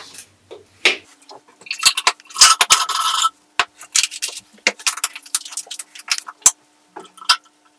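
Fork oil pouring from its bottle into a plastic measuring cup for about a second and a half, starting about two seconds in, among small clicks and taps of the bottle, cap and cup being handled.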